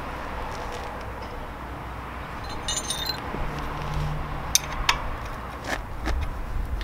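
A metal 17mm wrench being handled: a ringing clink about three seconds in, then a few sharp clicks, over a steady low background rumble.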